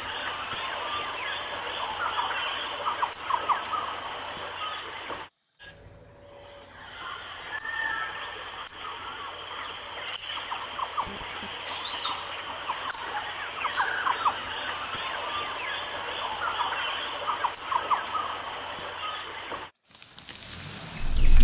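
Wetland ambience: several birds calling over a steady high insect drone, with a sharp high chirp falling in pitch every second or few. The sound breaks off twice briefly, and near the end a low rumble and hiss take over.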